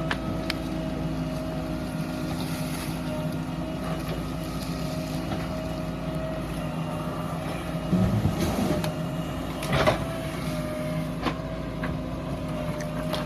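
Diesel engine of a backhoe loader running steadily, with a louder heavy thud about eight seconds in and a sharp knock just under two seconds later.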